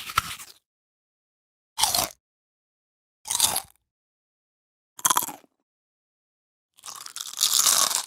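A person biting into food, heard as separate sound-effect takes with silence between them: four short single bites, then a longer bout of chewing near the end.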